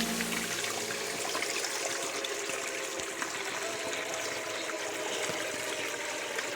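River water running steadily over rocks.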